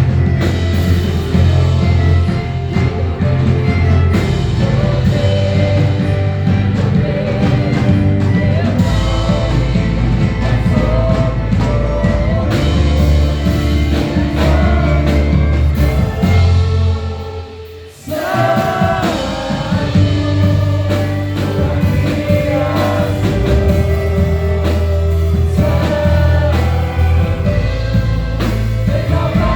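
Live gospel worship music from a church orchestra with singing over a strong bass line. The music dips briefly about two-thirds of the way through and then comes back in.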